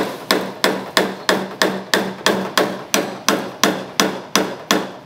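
Paintless dent repair knock-down: a white tap-down punch held against a car body panel is struck in a steady run of light, sharp taps, about three a second, knocking down the raised metal left around a dent.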